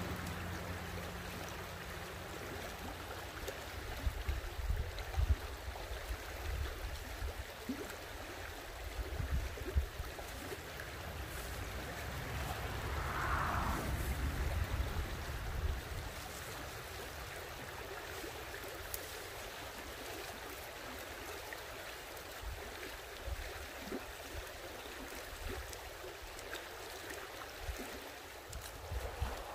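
Shallow stream flowing steadily over its bed, with low rumbling bumps through the first half, typical of wind on the microphone.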